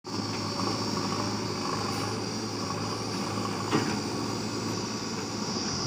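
Steady drone of heavy diesel engines: a tipper dump truck running close by, with backhoe loaders working behind it. A short knock sounds a little past halfway.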